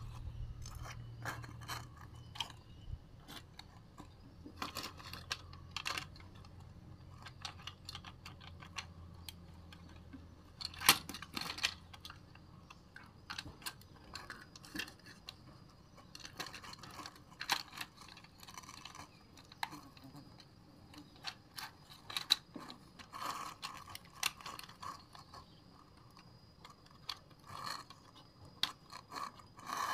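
Irregular clicks and clacks of a plastic toy RC bulldozer being handled and put back together by hand, with a small screwdriver working screws into its body.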